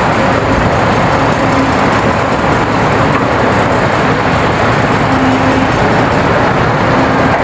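LiuGong hydraulic mining excavator's diesel engine running hard as it digs and swings its bucket. The noise is a steady heavy machine din, with a pitched hum that comes and goes.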